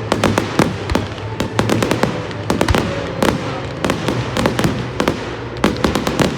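Fireworks going off in quick, irregular succession, sharp bangs and crackles many times a second, over music playing through a PA.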